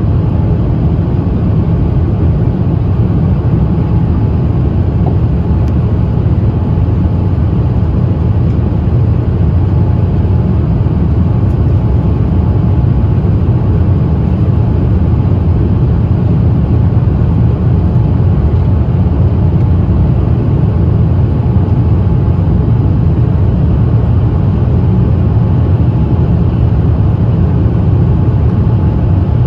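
Steady low rumble of cabin noise inside a Boeing 787-8 airliner on approach, the engines and rushing airflow blended into one even drone.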